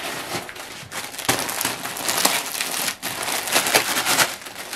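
Clear plastic packets of suit material being handled, crinkling and rustling unevenly, with several sharper crackles.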